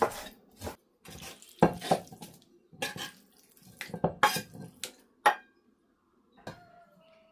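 Irregular clinks and knocks of kitchen dishes and utensils being handled, about a dozen strikes; near the end a struck dish or bowl rings briefly.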